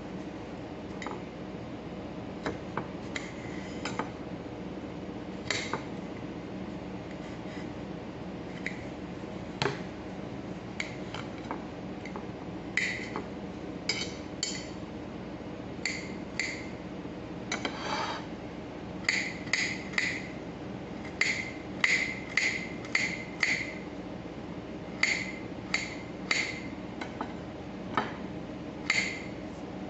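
Kitchen knife dicing a carrot on a ceramic plate: the blade knocks on the plate at scattered moments at first, then in a quicker run of about two taps a second in the second half.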